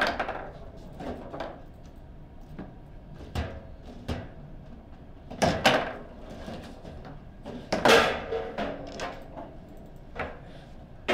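Table football (foosball) in play: the hard ball cracking against the figures and table walls, with rods and players clacking in several sharp knocks at irregular intervals. A shot goes into the goal partway through.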